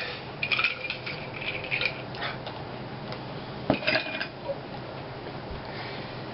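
Light clinking of small hard objects, a few ringing clinks in the first two seconds and one sharp clink about three and a half seconds in, over a faint steady hum.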